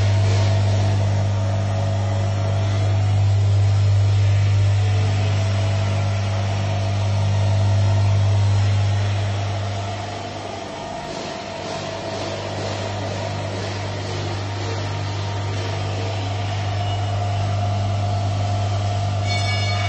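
Tabletop chamber vacuum packing machine's vacuum pump running with a steady low hum as it draws the air out of the sealed chamber during the vacuum stage of the packing cycle. It drops somewhat in level about halfway through, then carries on.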